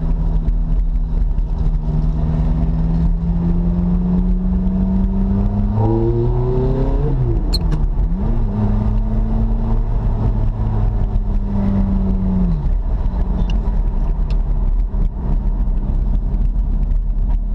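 Ferrari F430's V8 engine heard from inside the cabin while driving at low speed. The revs climb for a few seconds, dip sharply about seven seconds in, hold steady, then fall away again about twelve seconds in.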